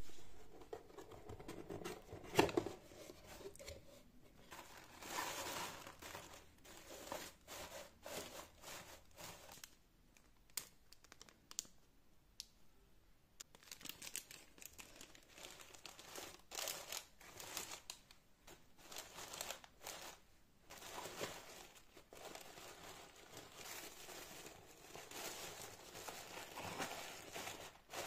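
Tissue paper and shredded paper filler crinkling and rustling as a box is unpacked by hand, in irregular bursts, with one sharper knock about two and a half seconds in.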